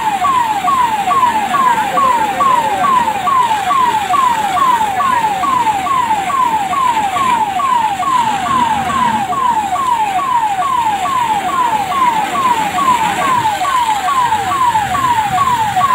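Emergency-vehicle electronic siren on a fast yelp, a falling sweep repeating about three times a second without a break, over the steady hiss of a water jet spraying onto the tanker.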